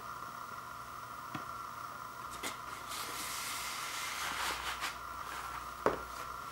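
Cardboard LP gatefold jacket being handled: soft rustling and sliding of the sleeve, then a single sharp tap near the end as it is laid flat on a wooden floor, over a steady background hiss.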